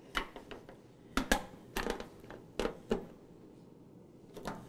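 Small screwdriver turning a tiny screw to fasten a foot onto a Coleman camp stove's metal body: about ten irregular clicks and scrapes, with a pause before the last one near the end.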